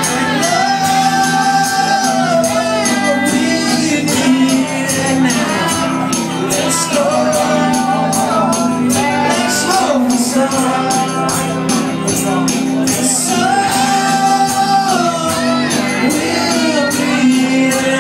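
Live band music: a man singing over guitar and drums, with a steady beat of drum and cymbal hits and long held sung notes.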